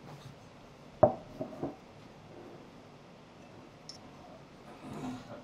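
A white ceramic bowl set down on a wooden table about a second in: one sharp knock, then two lighter knocks. A faint click of cutlery follows later.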